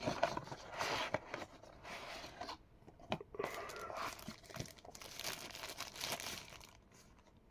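Packaging being handled and torn open by hand: irregular crinkling and tearing with small clicks and knocks, dying away about seven seconds in.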